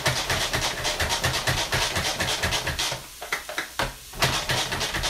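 Pull-cord manual food processor chopping onion: each quick pull of the cord spins its three blades through the onion in the bowl, giving a fast run of whirring strokes with two short breaks about three and four seconds in.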